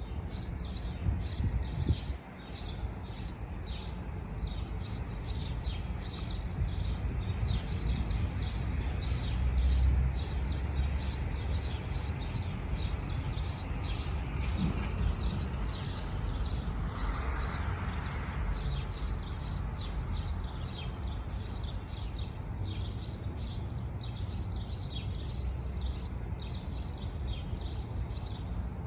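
Birds chirping steadily, short high chirps repeating about three times a second, over a constant low rumble.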